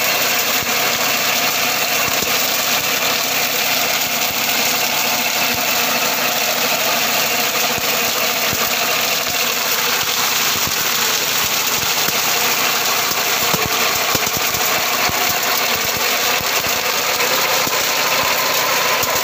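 Mini tractor engine running steadily while driving a sugarcane de-trashing attachment, whose spinning drums strip dry leaves from the cane. A dense rattle and clatter of the machine sits over the steady engine note.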